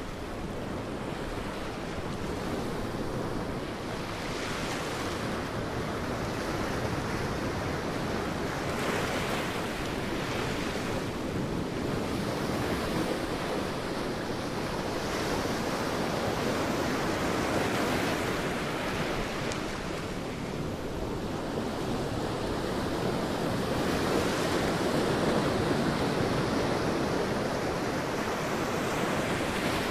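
Sea waves breaking and washing on a beach, a continuous surf noise that swells and eases every few seconds, with some wind.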